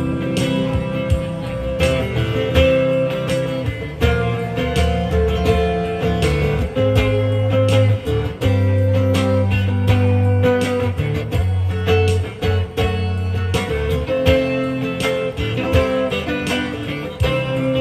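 Guitar strummed in a steady rhythm over sustained low notes: the instrumental intro of a song, with no singing yet.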